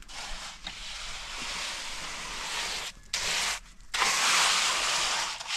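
A hissing, rushing noise in three stretches: a long one, a short one, then a louder one, each cutting off sharply.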